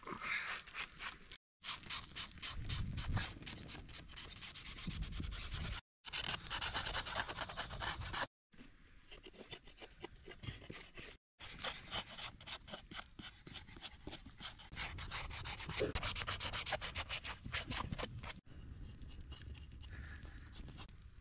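Beef legs being scraped clean: repeated rasping strokes in several short takes, broken by abrupt cuts to silence.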